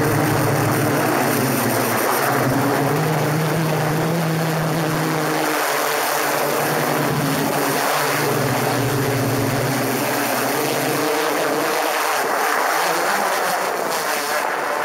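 DJI Inspire 1 quadcopter's electric motors and propellers whirring close to the microphone as it descends. A steady buzzing hum over rushing noise, its pitch shifting a few times as the motor speeds change.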